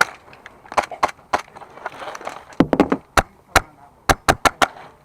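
Airsoft gunfire: a dozen or so sharp single cracks and hits at irregular intervals, with a quick cluster of several about two and a half seconds in and a closer run near the end.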